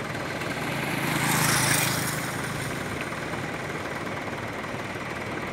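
Road traffic at an intersection: a vehicle passes, its noise swelling and fading about one to two seconds in, over a steady low engine hum.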